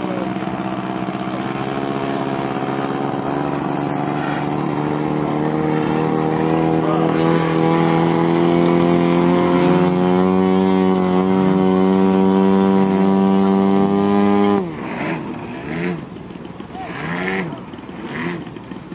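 Radio-controlled model aircraft engine running loud and steady, its pitch creeping slowly upward, then ending abruptly about fifteen seconds in. Afterwards a fainter engine sound rises and falls in pitch as it passes, with a few bursts of noise.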